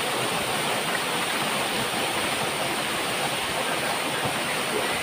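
Small waterfall splashing down rock into a pool, a steady rushing of falling water.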